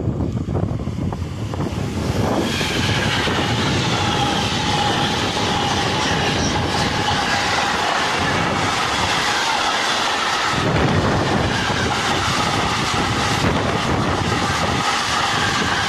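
A freight train hauled by a Class 186 TRAXX electric locomotive passing close by: the locomotive arrives, then a long string of flat and tank wagons rolls past with a loud, steady rumble and clatter of wheels on rails. About two seconds in, a steady high-pitched wheel squeal sets in and runs on under the passing wagons.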